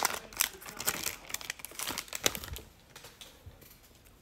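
Foil wrapper of a Panini Prizm football card pack crinkling and crackling as it is peeled open by hand, with clicks from the cards inside. The crackling dies away about two and a half seconds in, leaving only faint handling.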